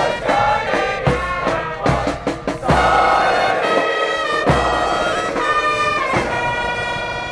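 Brass band music, with trumpets and trombones over a steady bass drum beat. It ends on held brass chords that fade away.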